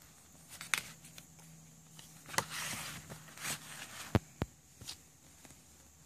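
Cardboard CD sleeves and a paper booklet being handled: rustling and sliding, with scattered sharp taps and clicks. Two taps come close together a little past the middle.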